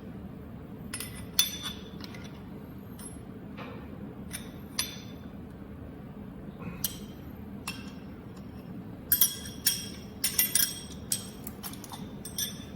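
Steel spanners clinking against the welding head of an ultrasonic spot welding machine as the head is tightened and locked in place. Scattered metallic clinks, coming thicker near the end, over a steady low machine hum.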